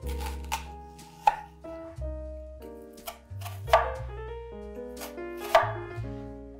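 Chef's knife slicing through a peeled onion and knocking on a wooden cutting board: several cuts, with three sharp strikes standing out about two seconds apart. Soft background music plays underneath.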